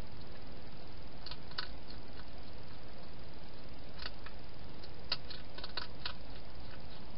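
Hedgehog eating from a bowl, giving scattered crisp clicks of chewing, a few near the start and a cluster about five to six seconds in, over a steady hiss.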